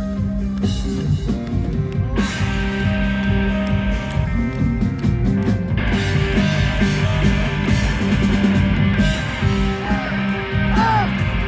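Live rock band playing an instrumental passage: electric guitars over a drum kit, with a bass note held underneath and sliding, bending notes coming in near the end.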